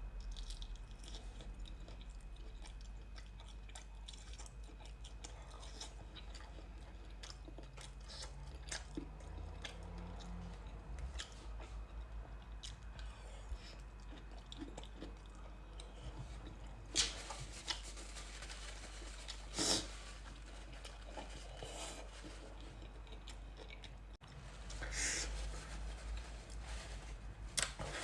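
Close-miked chewing of noodles and sausage, with small wet clicks and three louder sharp crunching sounds in the second half, over a steady low hum.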